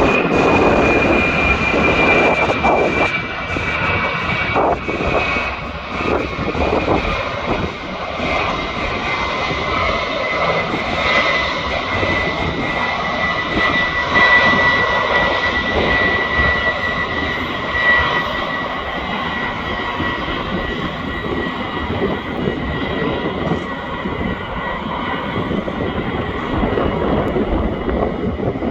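Jet engines of a Boeing 707-based AWACS aircraft on landing: a steady loud roar with a high engine whine that slowly falls in pitch, then holds.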